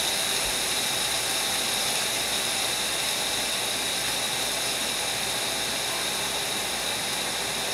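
Vent fan of a Bosch over-the-range microwave running steadily: an even rushing noise with a faint high tone.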